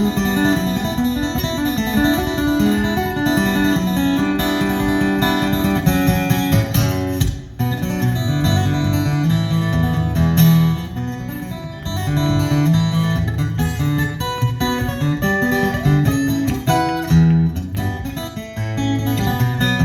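Acoustic guitar strummed and picked in a live performance, with a brief break about seven and a half seconds in.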